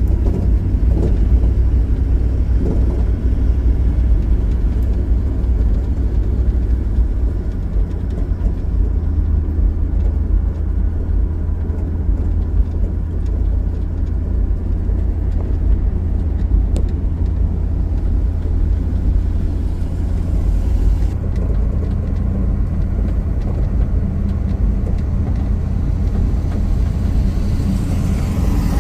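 A car driving on the road, heard from on board: a steady low engine rumble mixed with road and wind noise. The sound shifts about 21 seconds in.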